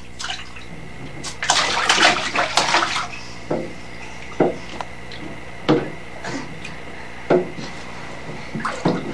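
Bath water splashing in a bathtub as a baby moves in it: a burst of splashing about a second and a half in, lasting about a second and a half, then a few short single splashes about a second apart.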